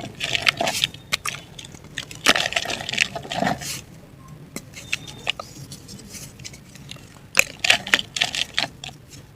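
Dry chunks of mud and black dirt crumbling and breaking apart: irregular gritty crackles and crunches. They come in clusters about half a second in, from about two to four seconds, and again from about seven and a half seconds, with sparser crackles in between.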